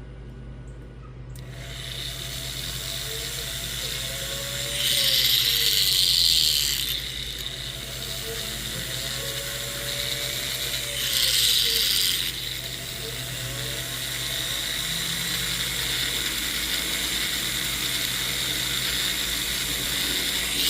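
A small electric rotary tool starts up about a second and a half in and runs steadily on a silver chain. It grows clearly louder twice for a couple of seconds, as it works the metal.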